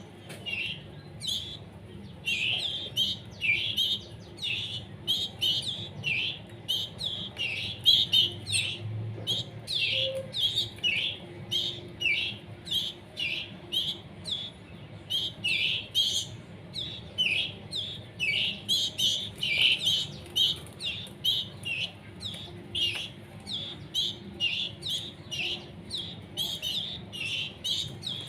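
Canary chicks begging with short, high-pitched chirps repeated about twice a second, the calls of fledglings wanting to be hand-fed.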